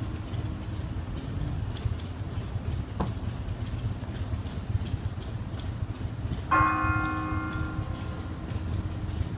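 Church bell struck once about two-thirds of the way in, its ring fading over a couple of seconds, with the fading ring of an earlier stroke at the start. A low steady rumble runs underneath.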